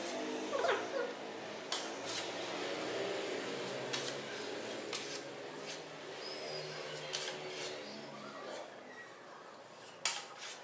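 Metal putty knife scraping and clicking against a stencil and wall in short strokes, over a steady low hum.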